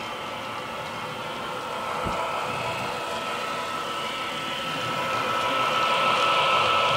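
HO scale model diesel locomotives running along the track, a steady motor whine over wheel and track noise that grows louder as the train approaches, loudest near the end.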